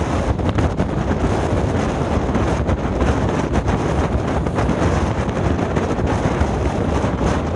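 Heavy wind buffeting the microphone over a passenger ferry under way in rough water, with the steady rush of waves breaking against its hull.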